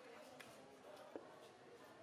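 Near silence: faint background murmur with two soft knocks, about half a second in and again just after a second, from the knife striking the wooden block as a king mackerel is cut into steaks.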